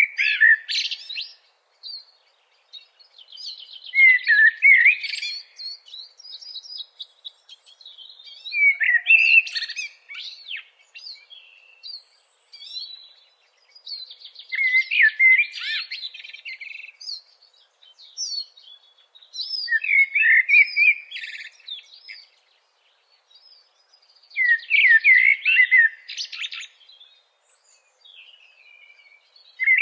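A songbird singing: a phrase of quick chirps and buzzy trills about every five seconds.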